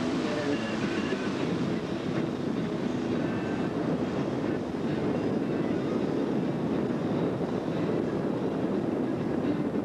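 Steady rumble and rush of a vehicle driving along a dirt road, with road and engine noise and no distinct events.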